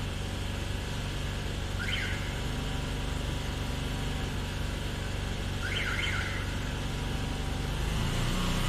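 Engine of an engine-driven high-pressure drain-cleaning jetter, run in single-engine mode, running steadily before the water jet starts, with a short rise in pitch near the end.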